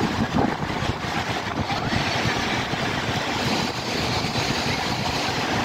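Wind rumbling on the microphone over a steady wash of outdoor street noise from passing traffic.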